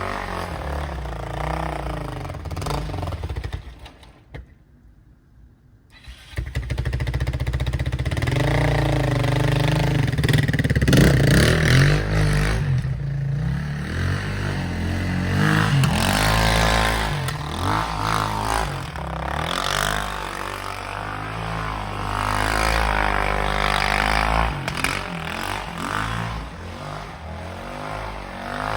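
Yamaha Raptor 660 ATV's single-cylinder four-stroke engine running and being revved up and down repeatedly. It cuts out about four seconds in and is running again about two seconds later.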